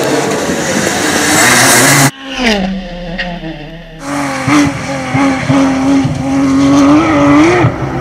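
Rally car engines at full throttle, edited together from several clips. The first loud engine cuts off abruptly about two seconds in; a quieter engine then falls in pitch as a car slows, and from about four seconds a steady high-revving engine note wavers up and down with the throttle.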